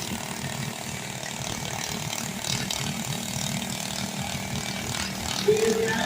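Small lawn-tractor engine running steadily at a garden-tractor pull, with a dense mechanical rattle. A short, pitched call or tone cuts in about five and a half seconds in.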